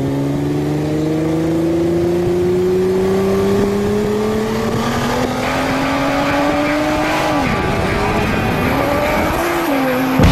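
Bugatti Veyron's W16 engine pulling hard under full acceleration, heard from inside its cabin: the engine note rises steadily for about seven seconds, then drops at gear changes about seven and a half and nine and a half seconds in. A sharp click near the end.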